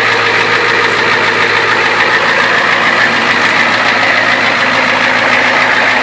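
Ford Super Duty pickup's diesel engine idling steadily.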